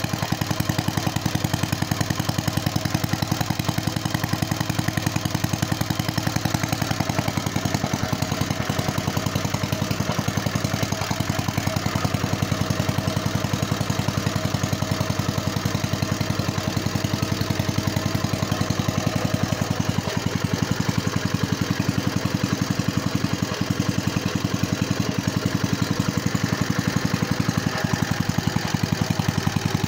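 Freshly rebuilt Kohler K91 single-cylinder air-cooled engine running steadily, its exhaust firing in an even, rapid beat.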